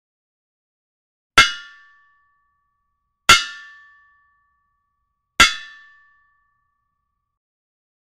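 Hammer striking metal three times, about two seconds apart: each blow is a sharp clang that leaves a short ringing tone dying away within a second.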